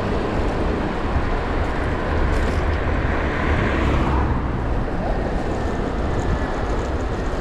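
Wind rushing over the microphone of a moving bicycle, with a steady low rumble of tyres on the road.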